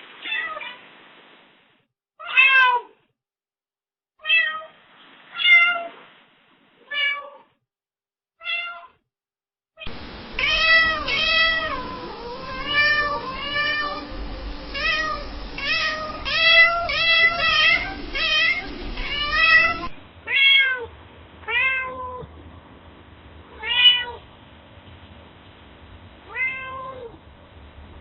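Domestic cats meowing, in three recordings: first a string of single meows with short gaps, then about ten seconds of rapid, overlapping meows, then a few more single meows over a low steady hum.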